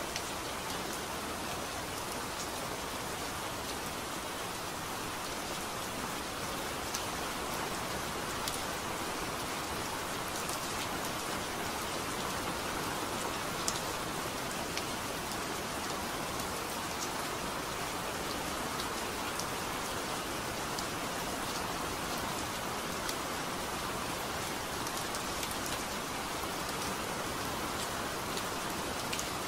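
Steady rain falling, with scattered sharp ticks of single drops striking.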